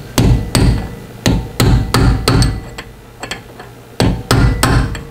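Hammer striking a punch held against the collar of a new differential pinion nut, bending the collar into the indent to lock the nut. About a dozen sharp, ringing metal blows come in three quick bursts with short pauses between.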